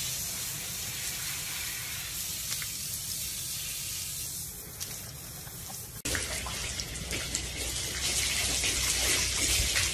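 Water hissing from a garden hose spray nozzle onto a horse's coat. About six seconds in it cuts to a louder hose spray over a horse's back, with water spattering onto the wash-stall floor.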